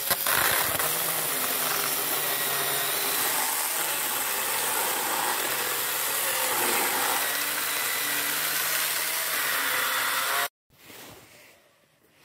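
Worx WG324E 20 V cordless mini pruning chainsaw running and cutting through a log, its motor pitch shifting as the chain cuts. It cuts off suddenly near the end, and only faint handling noises follow.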